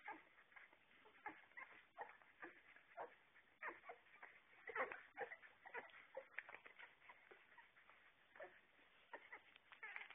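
Puppies whimpering and squeaking faintly while they feed, in short, separate high cries about two a second, loudest about five seconds in.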